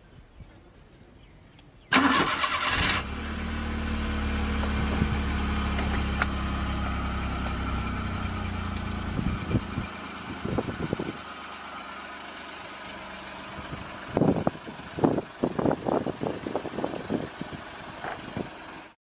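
Car engine starting with a sudden loud burst about two seconds in, then running steadily at idle. Near the end there is a run of short, irregular loud bursts.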